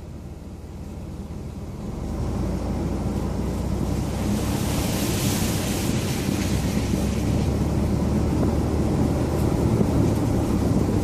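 Vehicle driving along a muddy dirt road: a steady low engine and road rumble that gets louder about two seconds in, with wind noise on the microphone and a brief swell of hiss midway.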